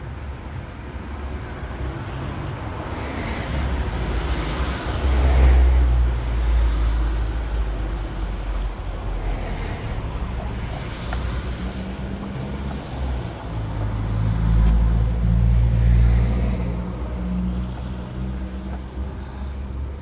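Motor vehicles passing by, a low rumble with engine hum that swells twice, about five and fifteen seconds in.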